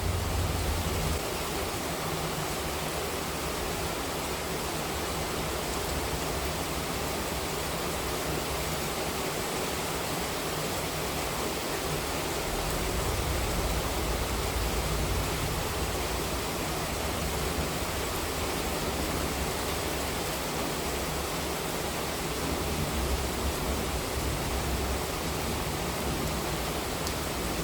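Heavy monsoon rain falling in a steady, dense hiss. The tail of a low thunder rumble fades out in the first second.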